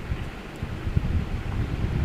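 Rolling pin working a ball of dough on a plastic board, heard as a low, uneven rumble with soft knocks.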